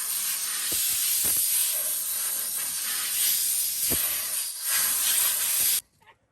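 A steady, loud hiss with a few faint knocks, cutting off suddenly near the end.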